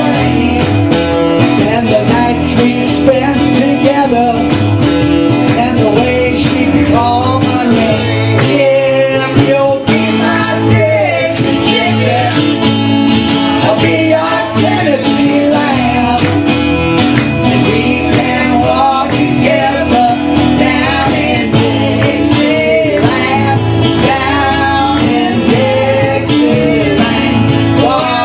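Acoustic band playing a country-rock song live, several acoustic guitars strumming with singing over them.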